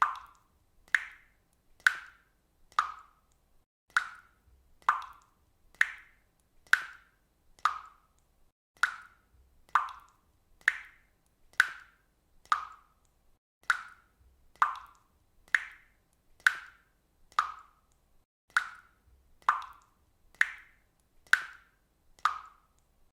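Water dripping steadily, one short plop about every second.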